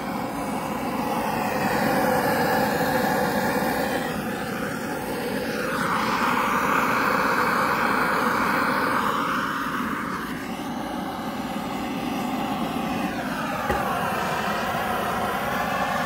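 Bernzomatic hand torch's flame hissing steadily as it is held against charcoal briquettes to light them, its tone slowly shifting as the flame moves.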